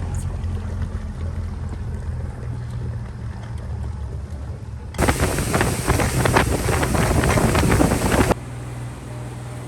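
Boat motor running with a steady low hum. About five seconds in, a loud rush of wind on the microphone comes in suddenly for about three seconds, then cuts off to a quieter steady hum.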